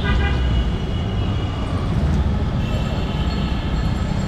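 Road traffic: a steady low rumble of vehicle engines passing close by, with a brief high tone right at the start.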